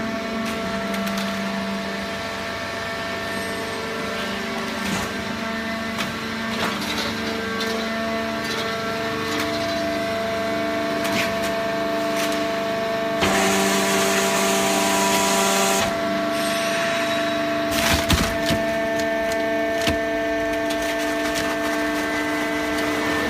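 Hydraulic baler running while it compresses waste paper: a steady hum with several held tones. About thirteen seconds in there is a hissing stretch lasting a couple of seconds, and a few sharp cracks follow around eighteen seconds.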